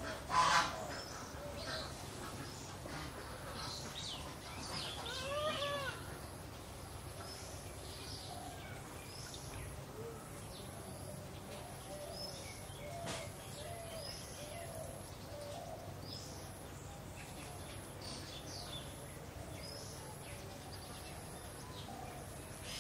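Wild birds calling around a pond: many short, scattered chirps, a loud call right at the start and a longer pitched call about five seconds in. A faint high buzz switches on and off in the background.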